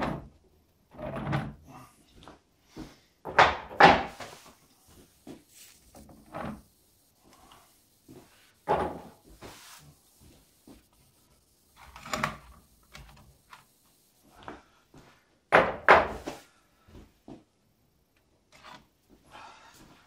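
Test weights being lifted off an MDF model bridge and set down by hand: a series of separate knocks and thuds every few seconds, some in quick pairs, with quiet gaps between.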